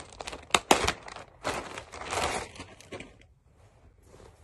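Packaging crinkling and rustling as a shirt is unwrapped by hand, with two sharp snaps about half a second in. The handling noise dies down to faint rustling after about three seconds.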